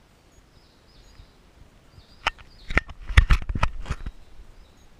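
A quick run of knocks and rubbing, about eight sharp hits in under two seconds starting a little over two seconds in: handling noise from a handheld camera being gripped and swung around. Faint high bird chirps come before it.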